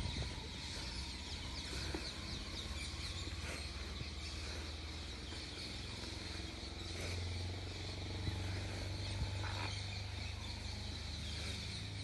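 Outdoor ambience: many small birds chirping high over a steady low rumble, with a few faint knocks.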